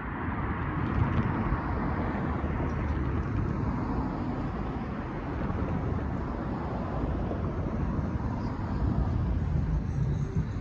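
Road traffic: cars and a pickup truck driving by, a steady wash of tyre and engine noise.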